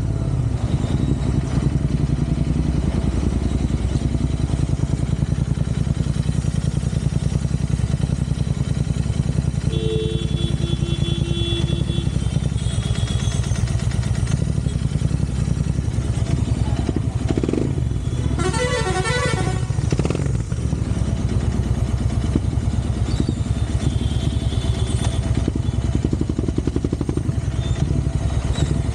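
Royal Enfield Interceptor 650's parallel-twin engine running steadily under way. Vehicle horns sound twice: a steady horn about a third of the way in, and a longer, wavering one past the middle.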